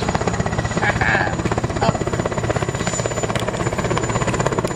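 Helicopter rotor sound effect: a steady, rapid chop of rotor blades.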